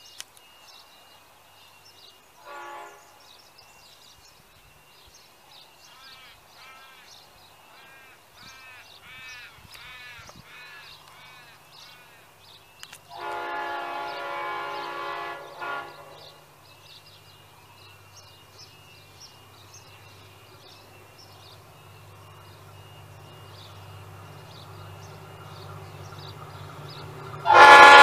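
Diesel-electric locomotive A66 coming toward a station and sounding its multi-note air horn: a short blast about three seconds in, a longer one near the middle, and a very loud blast starting just before the end. The engine's low running grows louder as it approaches. Birds chirp throughout, and one calls repeatedly for several seconds before the middle blast.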